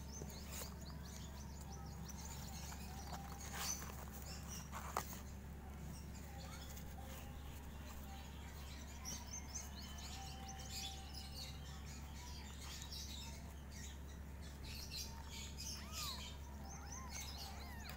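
Very young kittens mewing with thin, high-pitched cries scattered through the clip, one rising-and-falling mew near the end, over a steady low hum.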